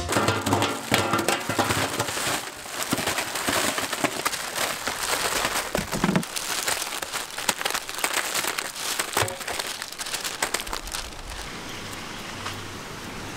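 Plastic wrappers of a heap of Parle Fab! Bourbon biscuit packets crinkling as they are handled, with many small crackles. About eleven seconds in this gives way to a steady low hiss.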